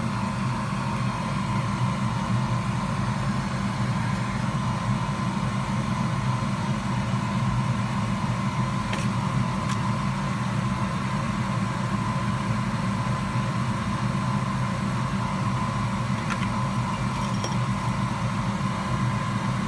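Steady machine hum, droning without change, with a faint steady tone over it and a few faint light ticks about halfway through and again near the end.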